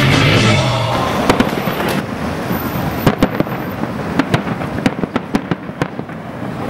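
Fireworks going off: a rapid, irregular series of sharp bangs and crackles over a low rumble.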